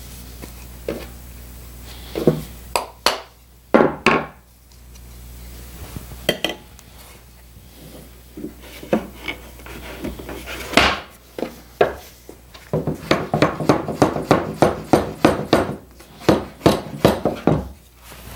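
Wooden parts and tools knocking on a workbench as glued, doweled sections of a chair rocker are fitted and clamped. Scattered single knocks come first, then a quick run of light taps at about five a second for several seconds, briefly pausing once.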